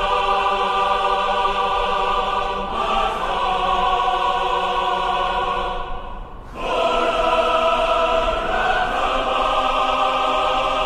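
Film-score choir singing long, held chords, with a short break about six seconds in before the next chord begins.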